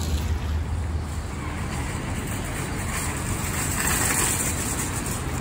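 City street traffic: road vehicles running and passing, with a steady low rumble, loudest about four seconds in as a vehicle goes by close.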